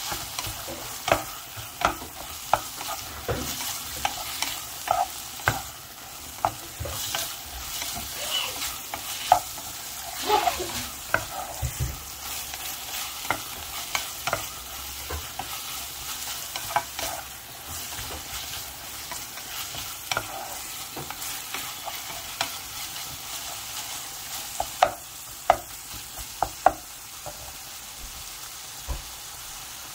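Food frying and sizzling in a hot pan while being stirred, with a utensil knocking and scraping against the pan at irregular intervals.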